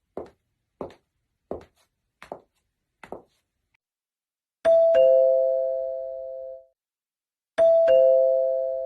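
A run of soft, evenly paced thuds, about one every 0.7 seconds, then a two-tone 'ding-dong' doorbell chime rung twice, about three seconds apart, each pair of notes ringing out and fading over about two seconds.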